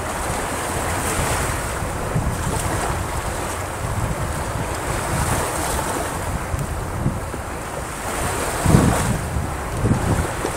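Ocean surf breaking and washing up the beach, with wind buffeting the microphone in low rumbles. A louder surge comes about nine seconds in, and another a second later.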